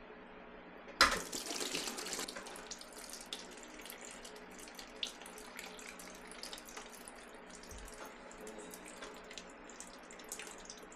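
Leftover water in a toilet tank pouring out from under the tank, through the opening around the lifted fill valve, and splashing into a plastic tub. The pour starts suddenly about a second in and then runs steadily.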